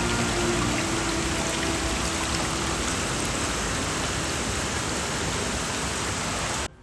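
Waterfall water rushing steadily, an even noise without pitch; it cuts off abruptly just before the end.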